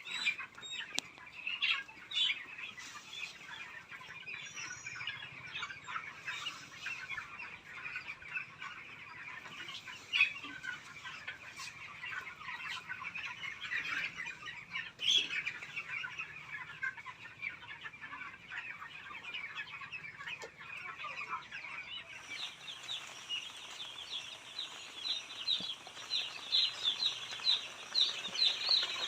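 A flock of chickens clucking and calling together in a dense, continuous chatter. About 22 seconds in, it changes abruptly to a thicker stream of higher, rapid calls.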